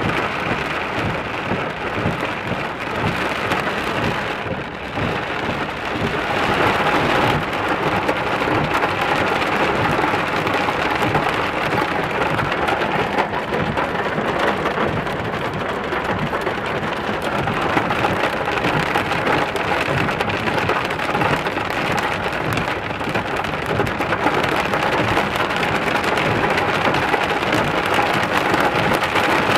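Heavy rain pouring down in a cloudburst, a dense steady hiss that grows a little louder about six seconds in.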